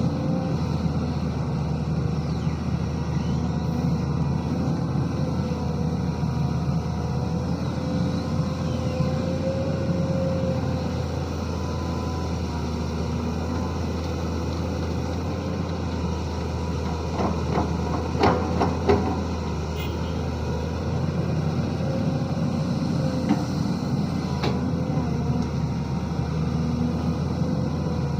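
Heavy diesel engine of a Sany SY215C excavator running steadily under load. A cluster of sharp knocks comes about two-thirds of the way in, and another single knock later.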